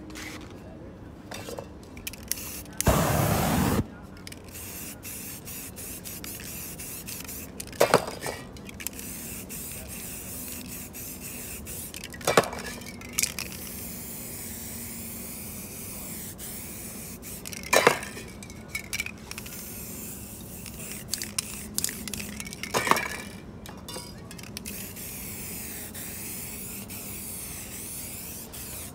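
Aerosol spray-paint cans hissing as paint is sprayed over a canvas, with one loud burst of spray about three seconds in. Several sharp metallic clinks of the cans come a few seconds apart.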